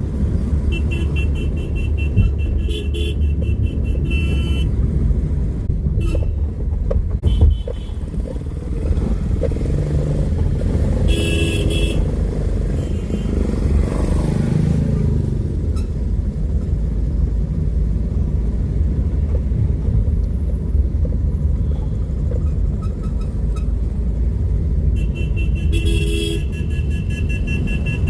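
Motorcycle horns honking in repeated blasts: a spell in the first few seconds, another about eleven seconds in, and a long one near the end. A steady low rumble runs under them throughout.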